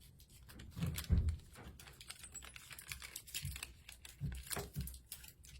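Paper being handled: light rustling and quick taps as small paper squares are picked up and pressed onto a paper bag, with a few soft thumps on the table, the loudest about a second in.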